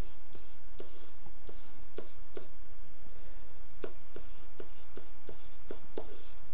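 Stylus tapping and scratching on a tablet screen while handwriting, heard as short sharp clicks: a few at first, a pause, then a quicker run of about three a second near the end, over a steady low hum.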